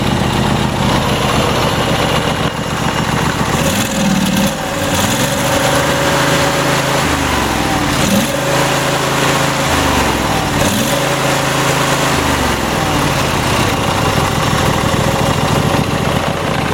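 Troy-Bilt GTX2654 riding mower's Briggs & Stratton Intek 26 hp V-twin engine running, its speed shifting up and down several times in the middle stretch before settling again.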